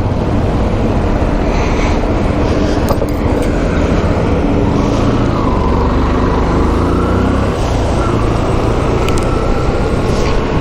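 Motorcycle engine running at road speed while riding, mixed with steady wind noise on the rider's microphone.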